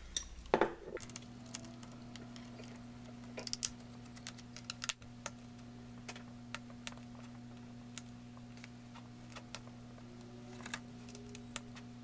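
Light, scattered clicks and taps of a small jeweler's screwdriver working the screws in a laptop's plastic bottom panel, over a steady low hum. A ceramic saucer is set down on the table with a knock near the start.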